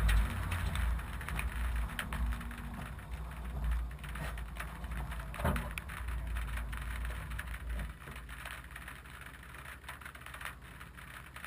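Subaru Impreza's flat-four engine running low as the car coasts to a stop and sits, heard from the hood, with scattered sharp clicks throughout and one louder click about halfway. The low engine rumble drops to a quieter hum about eight seconds in.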